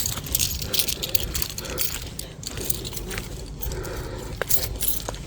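A bunch of keys jangling in a series of light metallic clinks, over a steady low rumble.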